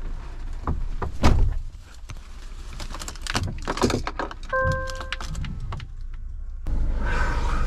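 Knocks and clicks of handling in a truck cab, then a short dashboard beep about four and a half seconds in. Near the end the Scania truck's diesel engine starts and runs at a steady idle.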